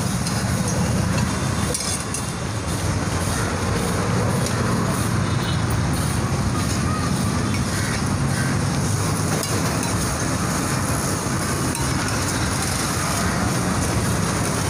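Egg ghotala cooking on a large iron tawa: a steady sizzle with a metal spatula scraping and chopping on the griddle, over a continuous low rumble.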